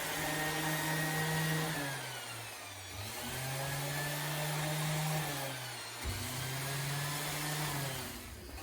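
Electric power tool motor running in three spells of two to three seconds each, separated by short pauses, with a click about six seconds in as it starts again.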